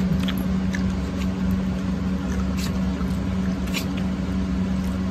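A steady low hum runs throughout, with a few faint clicks and scrapes of plastic forks against a foil plate of chow mein.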